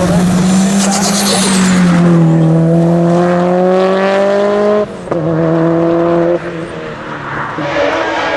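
Race car engine at full throttle, its pitch climbing steadily, with a sharp upshift about five seconds in. The sound falls away about a second later, and another engine note builds near the end.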